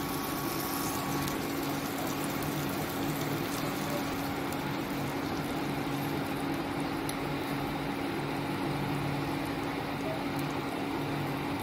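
Chicken skewers sizzling steadily in hot oil in a nonstick frying pan, an even frying hiss with a steady low hum beneath it.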